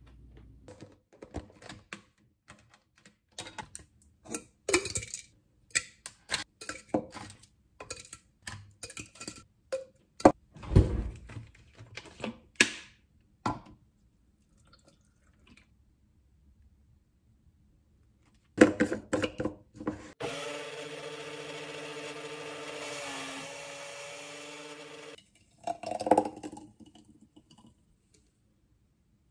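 Clicks and knocks of tongs, a plastic tub and a blender jar as melon chunks are loaded. Then a small personal blender's motor runs steadily for about five seconds, puréeing melon and water into a smoothie, followed by a few knocks as the jar comes off the base.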